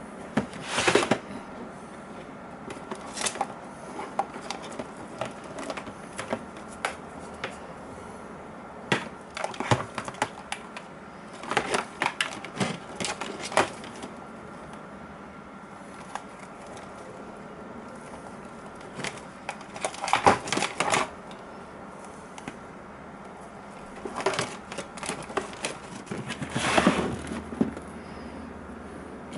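Hard plastic and small metal parts of a laptop being handled and taken apart by hand: irregular clicks, taps and short rattles in scattered bursts, with a faint steady hum underneath.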